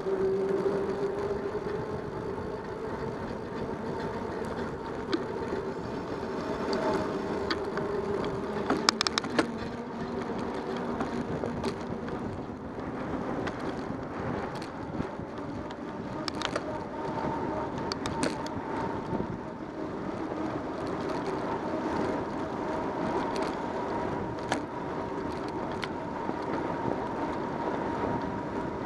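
Bicycle riding noise picked up by a bike-mounted camera: a steady rolling hum from the tyres on the trail, with scattered sharp knocks and rattles from bumps.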